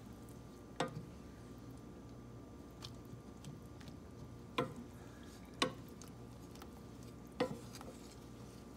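Wooden spoon stirring rose petals and water in a stainless steel saucepan, knocking sharply against the side of the pot a few times, over a faint steady hum.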